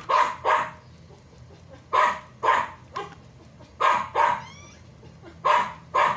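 A dog barking in pairs, two short barks about half a second apart, repeated four times at intervals of about two seconds.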